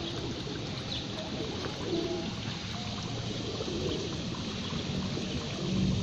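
Feral pigeons cooing low a few times over a steady rushing background noise.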